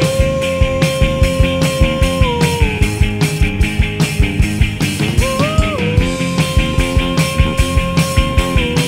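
Indie rock power trio playing: a steady, busy drum beat with bass and guitar under a long held melody note. The note slides down about two seconds in, jumps up briefly around five seconds in, and settles back to hold again.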